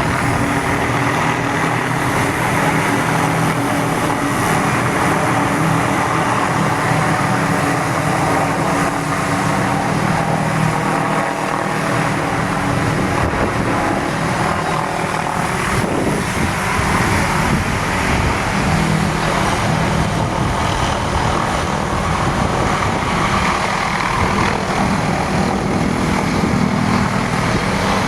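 Hughes 500D helicopter's rotors and turboshaft engine running steadily, a continuous loud drone with no break or change.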